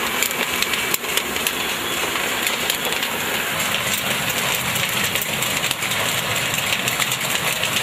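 Popcorn roasting machine running, with a dense, steady crackle of grain tumbling and popping in its drum.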